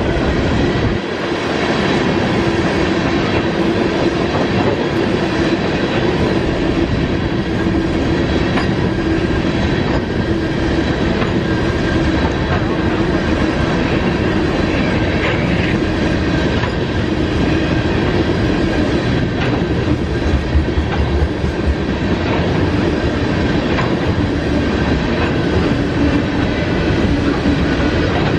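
Freight train cars rolling steadily past on the rails, a continuous rumble of wheels on track with a faint steady squeal-like tone.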